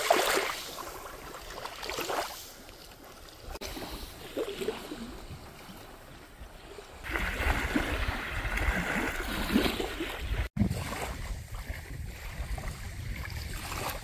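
Small sea waves lapping and washing on a sand-and-shingle shore, with wind buffeting the microphone. It swells softly a few times, then gets louder and rougher about halfway through.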